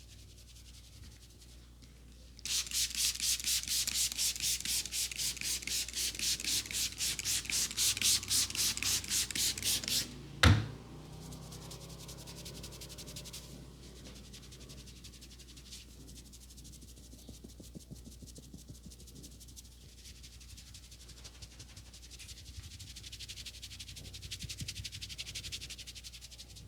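Hands rubbing rapidly and rhythmically over hair and scalp in a vigorous head massage, several strokes a second, loud for about eight seconds. It stops with one sharp crack, after which softer, slower rubbing goes on and swells again near the end.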